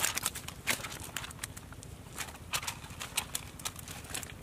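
Irregular wet taps and clicks as a cast net is shaken out and fish are picked from its bottom on wet mud.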